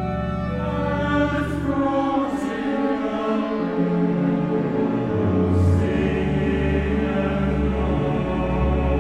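Mixed choir singing slow, sustained chords with a chamber orchestra of strings, harp and piano, performed live.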